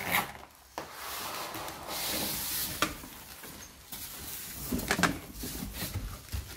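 Cardboard box and plastic wrapping rubbing and rustling as a boxed bread maker is handled and lifted out, with a couple of sharp clicks and a few dull knocks near the end.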